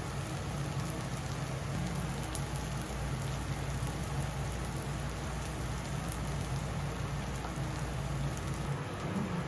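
Okonomiyaki sizzling steadily on a hot teppan griddle, with a steady low hum underneath.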